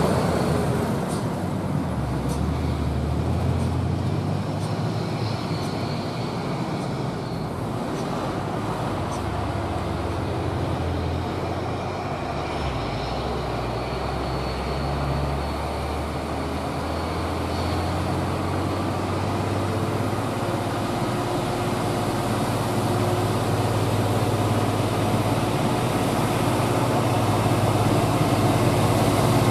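Diesel engines of a convoy of heavy trucks, led by a Hino 500 tractor unit hauling an excavator attachment, running steadily as the trucks approach. The low engine drone grows louder over the last several seconds as the lead truck draws near.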